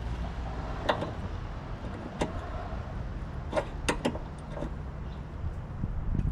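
A handful of sharp, irregular clicks and taps of a tool on metal as the bolt on the bottom of a two-stroke snowblower's carburetor is loosened to drain its fuel, over a low steady rumble.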